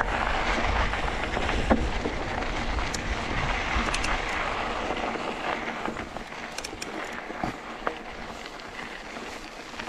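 Mountain bike riding on a dirt singletrack: wind rushing over the microphone and tyres rolling on the trail, with scattered clicks and knocks from the bike. The low rumble eases off about halfway through, leaving a lighter rushing hiss.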